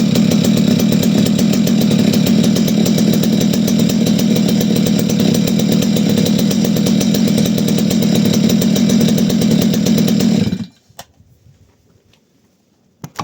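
Farmertec Holzfforma G255 two-stroke chainsaw idling steadily on its first run, then cut off suddenly about ten and a half seconds in. A few light clicks follow.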